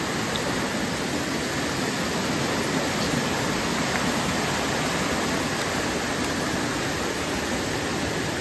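Mountain stream rushing over rocks and boulders: a steady, even rush of water.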